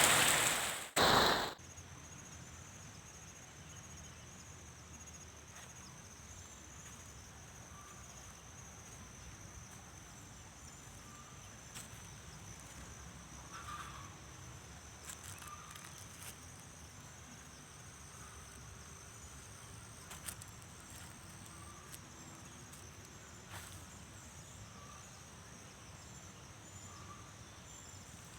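Insects trilling steadily in a continuous high thin tone over faint outdoor background noise, with a few scattered faint ticks. A loud rush of noise fills the first second and a half before it.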